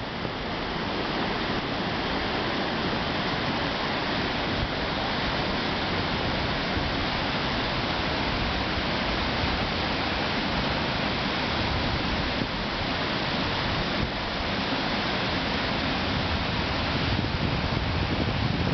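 A river swollen in flood, its water rushing in a steady, even roar of noise.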